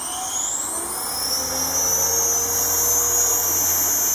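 Brushless electric motor and rotor of a Razor 400 RC helicopter spooling up. A high whine rises in pitch and grows louder over the first two seconds, then holds steady with the rotor blades whooshing as the helicopter lifts off near the end.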